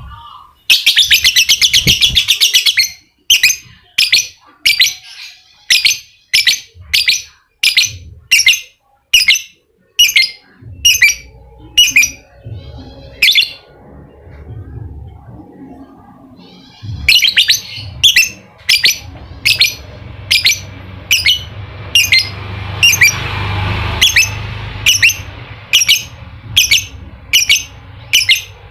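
Lovebird calling: a rapid chattering burst about a second in, then sharp, high chirps repeated about twice a second. After a pause in the middle, another quick run starts and the chirps go on, evenly spaced, to the end.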